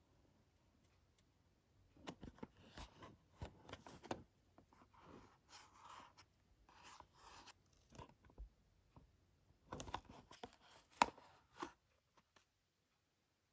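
Blind-box packaging of a small model truck being handled and opened by hand: irregular rustling, scraping and sharp clicks, starting about two seconds in and stopping shortly before the end.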